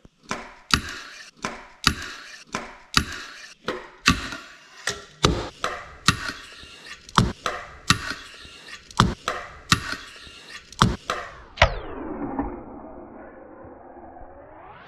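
Sharp, loud knocks and clacks at a fairly steady pace of about two a second. About three seconds before the end they give way to a smooth pitched sweep that falls low and climbs back up.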